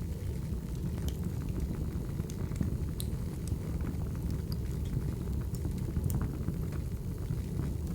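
Wood fire burning: a steady low rumble with scattered sharp crackles and pops.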